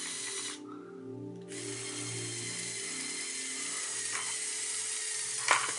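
The electric motors of a motorized Lego Technic excavator whirring steadily through its plastic gear trains as the arm and bucket move, the pitch and strength shifting as functions start and stop. A sharp click near the end.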